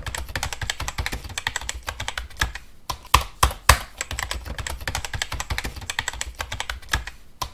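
Rapid, irregular clicking like typing on a keyboard, with a few louder strokes about three to four seconds in.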